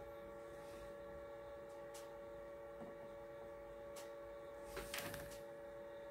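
Light metallic clicks and a short clatter of metal parts about five seconds in as the cast standards of a model steam engine are set down onto its base, over a steady electrical hum.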